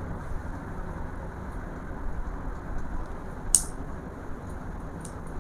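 Steady low background hum, with one sharp click a little past the middle and a couple of faint ticks near the end.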